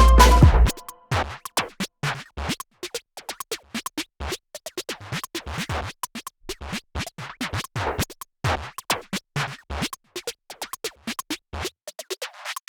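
Background electronic music: a full beat with bass cuts out under a second in, leaving a sparse, irregular run of sharp clicks and scratch-like hits.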